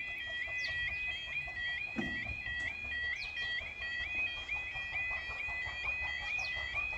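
Level crossing's electronic yodel alarm sounding while the half barriers are down and the red lights flash, a rapid two-tone warble repeating without a break: a train is approaching. A single knock about two seconds in.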